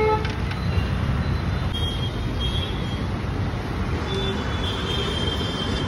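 Steady street traffic noise, a continuous low hum of passing road vehicles, with faint high tones around the middle and near the end.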